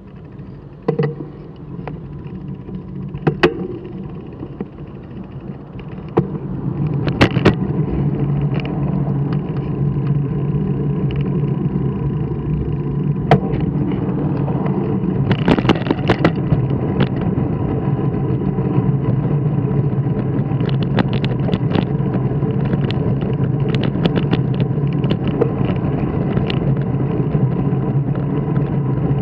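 Steady drone of a small vehicle travelling over asphalt, getting louder about six seconds in as it picks up speed, with scattered clicks and knocks.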